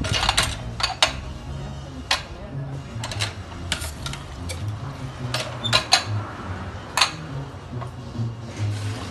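Irregular sharp clinks and knocks of drink-making at a bar counter, dishes and utensils being handled, about fifteen in all. Background music with a steady bass line plays under them.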